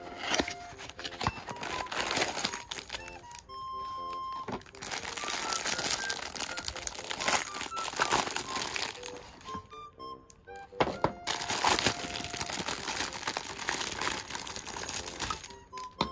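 Clear plastic bag and packaging crinkling and rustling in long stretches as a plastic cat toy is unwrapped, pausing briefly about four seconds in and again about ten seconds in. Light background music plays underneath.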